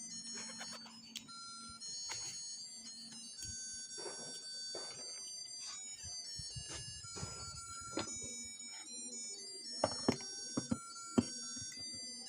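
Tinny electronic melody of high, beeping tones, with a few sharp clicks or knocks near the end.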